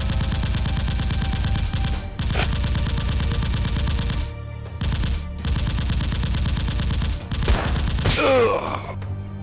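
Rapid automatic gunfire in three long bursts with short breaks between them, followed near the end by a brief wavering pitched sound.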